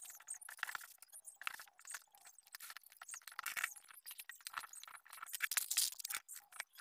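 Small hard objects clicking, clinking and rattling irregularly as they are handled and moved about on a shelf, with a sharp click right at the start.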